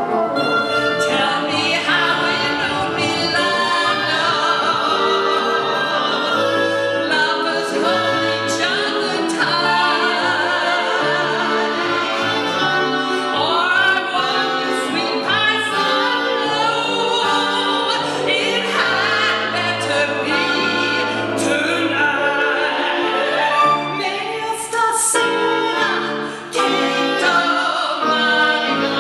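A woman singing a classical-style song into a microphone, her held notes wavering with vibrato, accompanied by a woodwind ensemble with oboe and bassoon.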